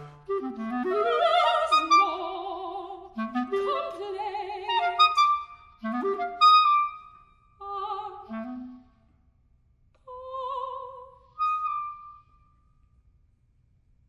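Soprano voice and B-flat clarinet performing a modern art song: the soprano sings with a wide vibrato over angular, leaping clarinet phrases. The phrases grow shorter and sparser, and the song ends about twelve and a half seconds in.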